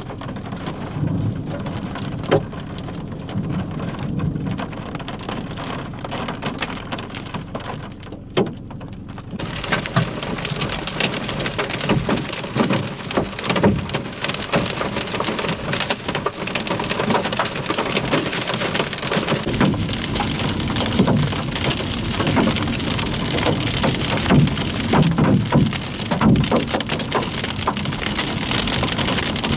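Rain and hail pelting a vehicle, heard from inside: a dense hiss full of sharp ticks and knocks. About ten seconds in it suddenly gets heavier and sharper.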